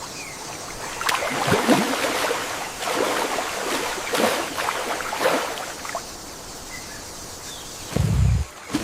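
Running water with repeated splashes through the first six seconds, then a few deep low thuds near the end.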